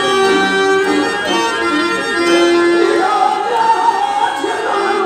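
Telugu stage-drama padyam: a man sings long, drawn-out notes to a harmonium accompaniment, the melody rising to a higher held note about three seconds in.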